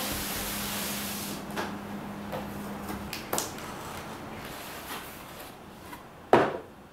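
A few light clicks and knocks, then one sharp thump near the end, like things being handled and set down.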